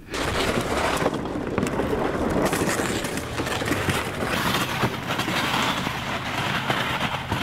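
Plastic ice-fishing sled dragged over snow-crusted lake ice, a steady scraping hiss.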